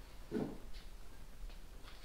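Woodworking clamps being handled and set on a wooden boat rail: a short dull knock about a third of a second in, then a few faint clicks.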